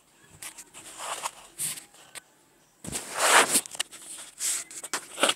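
Plastic packaging rustling and crinkling in irregular bursts as it is handled, loudest about three seconds in.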